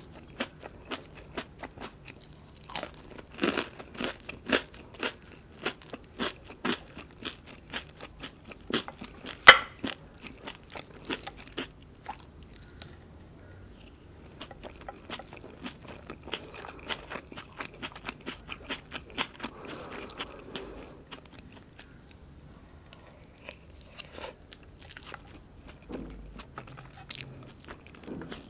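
Close-miked crunching and chewing of deep-fried breaded shrimp: a dense run of crisp crunches for the first twelve seconds or so, the loudest about nine and a half seconds in, then softer chewing.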